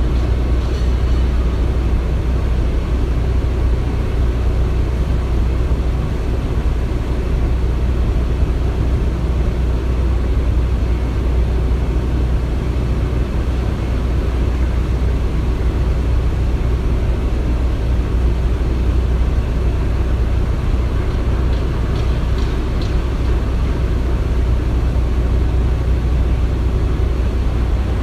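Steady low rumble of construction machinery, an even drone with no distinct blows or pauses.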